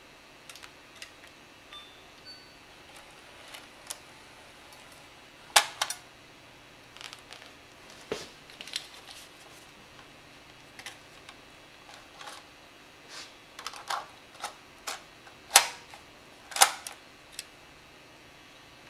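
Plastic clicks and snaps from the cassette compartment lid and latch of a Sony Digital8 DCR-TRV320 camcorder handled by hand. Scattered small clicks, with a few sharper snaps: one about a third of the way in and two a second apart later on.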